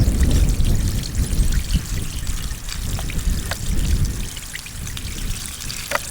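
Water pouring and trickling, with scattered drips and small splashes; a low rumble under it fades away over the first four seconds.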